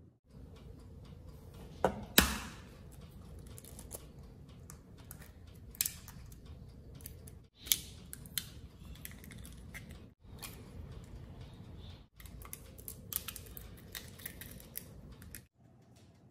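Close-up handling sounds of eggs being cracked into aluminium foil tins: sharp clicks and crackles of eggshell and foil, the loudest about two seconds in, broken by a few abrupt silences.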